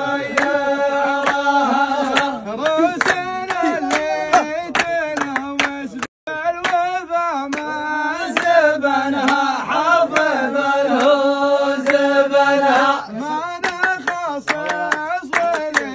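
A voice singing long, ornamented held notes over rhythmic hand clapping. The sound cuts out for a moment about six seconds in, then the singing and clapping resume.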